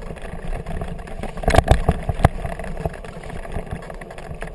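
Kickbike rolling fast over bumpy grass behind a dog team: a steady low rumble and rattle from the wheels and frame shaking the handlebar-mounted camera. A few sharp knocks about a second and a half in, and one more just after two seconds, as the scooter jolts over bumps.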